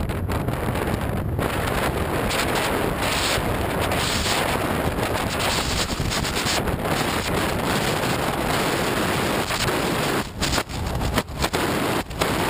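Wind rushing over the microphone of a camera mounted outside a moving off-road vehicle, a steady loud rush with vehicle noise beneath it. The rush drops out briefly a few times near the end.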